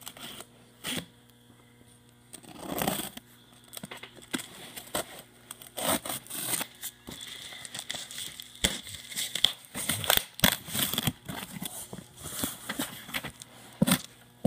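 Cardboard shipping box being cut open: packing tape slit with a blade and torn, then irregular rips, scrapes and rustles as the cardboard flaps are pulled back and the plastic wrapping inside crinkles.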